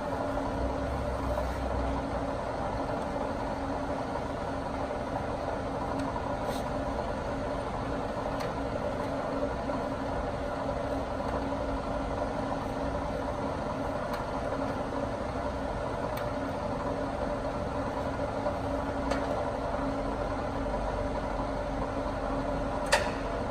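Bridgeport Romi Tormax engine lathe running steadily, its headstock gearing humming while the lead screw drives the carriage along the bed towards the chuck. A sharp click near the end.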